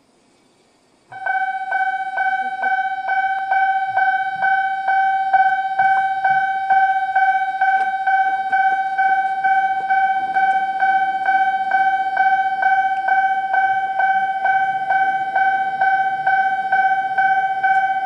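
Japanese level-crossing warning bell starting suddenly about a second in: an electronic bell of the high-pitched 'Mizuma' tone, striking about twice a second over a steady ringing tone. It signals an approaching train as the crossing's barriers come down.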